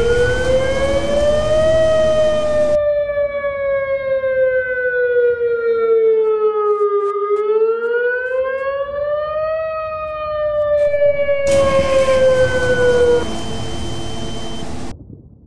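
Outdoor warning siren wailing, its pitch rising and falling slowly, about twice. A loud rushing noise covers it near the start and again near the end, and the siren stops near the end.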